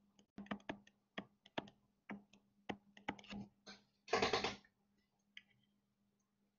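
Faint, quick, irregular clicks and taps of a stylus on a tablet as an expression is handwritten, then a brief louder rustle a little after four seconds. A faint steady electrical hum underlies it.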